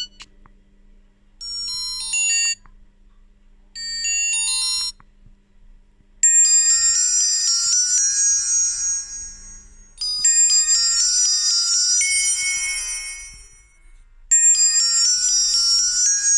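Alcatel 1030X phone's ringtones playing through its small speaker. First come two short melodic phrases about a second long each. Then, from about six seconds in, a bright, high-pitched ringtone plays a phrase that repeats roughly every four seconds.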